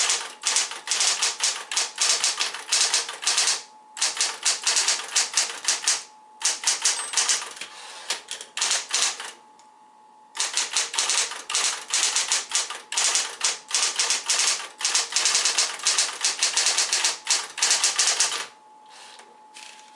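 Smith-Corona Coronet Electric 12 electric typewriter typing in fast runs of keystrokes with short pauses between them. The typing stops about a second and a half before the end, leaving a steady hum.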